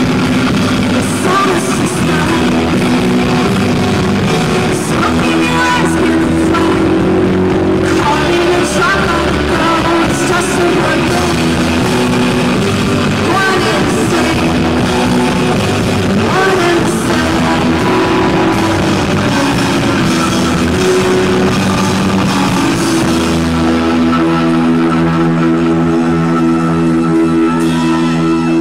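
A rock band playing live, loud and without a break: guitar and drums with a singer's voice over them.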